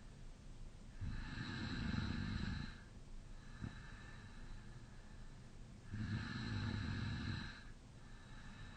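A man snoring in deep sleep with his mouth slightly open: two rough snoring breaths, each lasting under two seconds and about five seconds apart, with quieter breathing between them.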